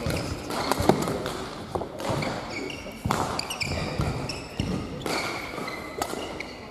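Badminton rally: rackets smack the shuttlecock several times, and sneakers squeak in short chirps on the court floor between the hits.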